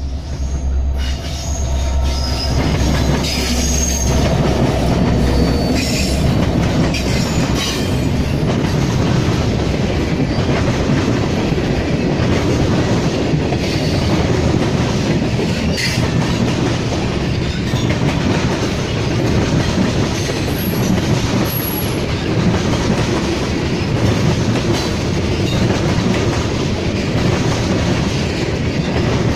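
Norfolk Southern freight train passing close by. The lead diesel locomotives' low engine hum fades within the first couple of seconds, and then tank cars and covered hoppers roll past with a steady loud rumble and clatter of wheels on rail, with a few brief high wheel squeals.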